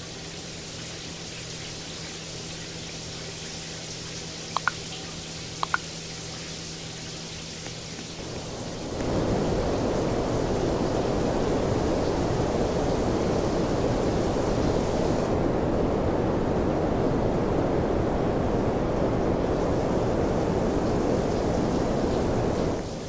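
A fan blowing air, a steady whooshing noise with a low hum under it and a few short clicks about four to six seconds in. About nine seconds in it switches to a much louder, fuller rush that holds steady, then drops back just before the end.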